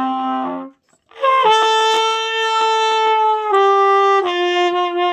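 Trumpet playing a slow melody in long held notes. One note cuts off under a second in; after a short breath a higher note is held for about two seconds, then the tune steps down twice to lower held notes.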